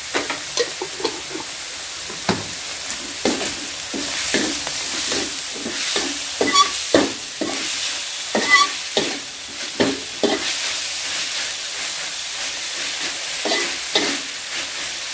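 Food sizzling in a hot metal wok while a metal slotted spatula scrapes and knocks against the pan, turning the stir-fry: a steady sizzle under repeated clanks and scrapes, a few of which ring briefly.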